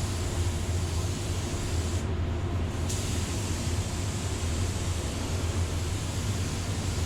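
Paint spray gun hissing as automotive clear coat is sprayed, over a steady low hum. The hiss cuts out for about a second near two seconds in, as the trigger is let off between passes, then starts again.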